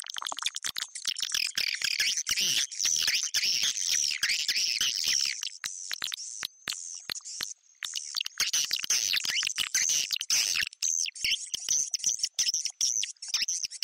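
Swiftlet calls: dense, rapid twittering chirps and clicks, layered thickly with only a brief thinning about halfway through. This is a recorded swiftlet lure call, played to draw the birds into a swiftlet house.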